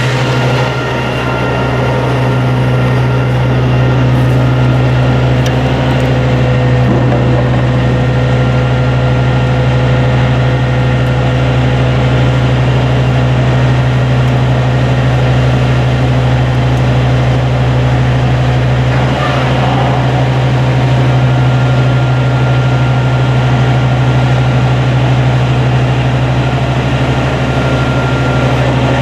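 A 2001 Sterling LT7500 hydro-excavator truck running steadily under its own power: a loud, constant low drone with steady whining tones above it. A short rush of noise about two-thirds of the way through.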